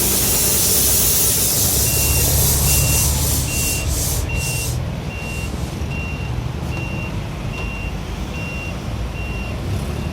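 A vehicle's reversing alarm beeping steadily at one pitch, about once every 0.8 seconds, starting about two seconds in, over a low engine rumble. A loud rushing noise fades away about halfway through.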